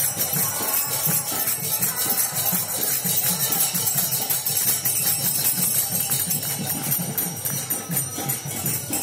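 Devotional music with rapidly jingling hand cymbals over a steady low drum beat.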